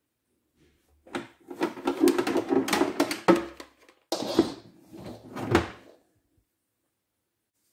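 Hard plastic Makita MakPac tool case being handled: clattering and knocking as a charger is set down inside it, then the lid is swung shut with a few sharp plastic knocks and clicks.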